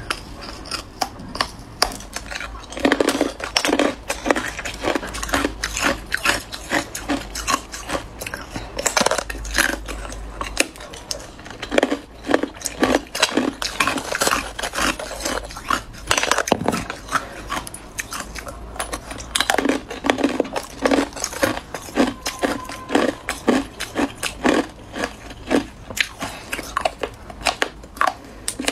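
Hard ice being bitten and chewed: a dense run of sharp cracking crunches that comes in bursts as the teeth break the slab into fragments.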